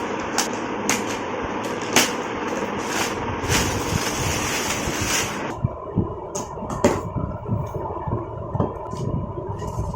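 Electric kitchen mixer grinder running, a steady motor noise with a few sharp clicks. About halfway through the hiss drops away, leaving a steadier hum with a rhythmic knocking.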